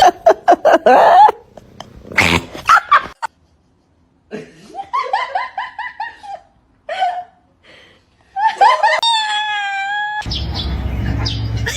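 A person laughing in a run of short rising and falling bursts, after a few sharp knocks. Near the end comes one long, steady, high-pitched call, and then the sound cuts to a noisy background with a low hum.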